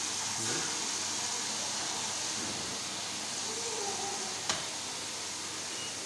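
Water hissing steadily through the open main wash inlet valve of an LG front-loading washer-dryer as the drum fills during its test cycle. One sharp click about four and a half seconds in.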